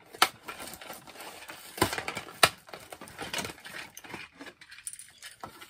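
Plastic toy packaging being handled and pulled open by hand: crinkling and rustling with a few sharp snaps and clicks.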